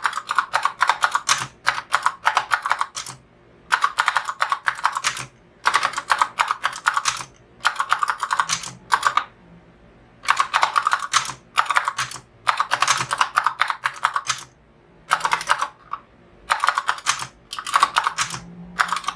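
Typing on a Redragon K605 mechanical gaming keyboard: rapid clacking keystrokes in quick runs of a second or two, broken by short pauses.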